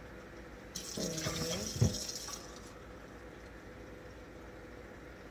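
Water runs from a tap for about a second and a half while cups of water are measured out for cooking rice, with a sharp knock near the end of the pour. A faint steady hum underlies it.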